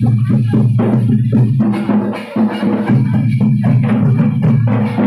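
Music with drumming: repeated percussion strikes over a steady low drone.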